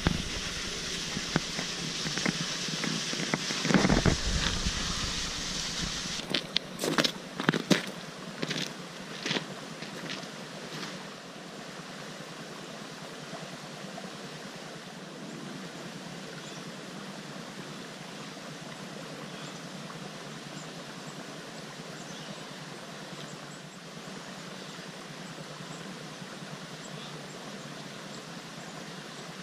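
A hand rummaging through a backpack's contents, rustling for several seconds. A few sharp knocks follow, then a steady, even hiss carries on for the rest of the time.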